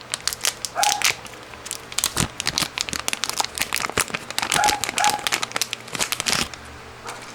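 Packaging crinkling and crackling in the hands as the Raspberry Pi Zero is unwrapped, a busy run of small irregular crackles that dies down near the end.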